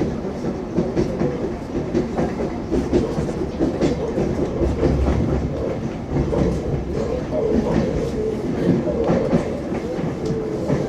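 Wheels of an ES2G 'Lastochka' electric train clicking over the rail joints under a steady running rumble, with many short irregular clicks.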